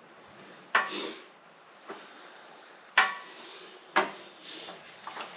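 Manual sheet metal brake bending a steel panel: sharp metallic clanks from the brake's leaf and clamp, three loud ones (about a second in, at three seconds and at four seconds) and a lighter knock between, each with a short ring.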